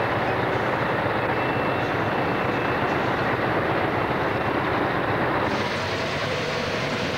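Steady drone of engine and road noise heard inside a lorry's cab while driving; the hiss turns brighter about five and a half seconds in.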